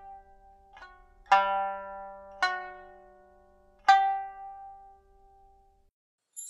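Sanshin, the Okinawan three-stringed lute, plucked in slow single notes: a faint one, then three strong ones about a second apart, each ringing out and dying away, the last fading out about five seconds in.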